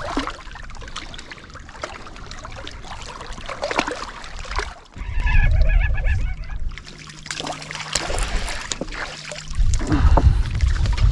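Gusts of wind rumbling on the microphone, with small splashes and water lapping against shore rocks. About five seconds in, a baitcasting reel is wound for a second or so.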